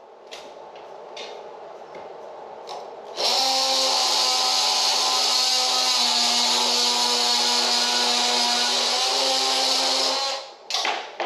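Electric hand power tool switched on and run at a steady, constant speed for about seven seconds, then switched off. A few light knocks come before it starts.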